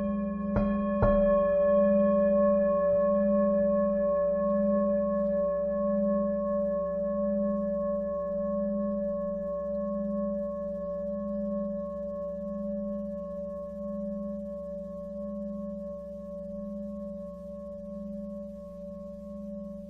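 Lingam singing bowl struck twice in quick succession about a second in, then ringing on in a long, slowly fading sustain of several steady tones, the low tone pulsing in slow, even beats.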